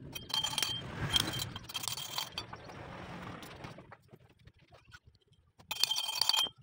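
Metallic clinking and rattling of motorcycle engine parts and a socket wrench being handled during a Yamaha Vega ZR engine teardown. It comes as three short bursts, with the last, near the end, as the socket extension goes onto a nut.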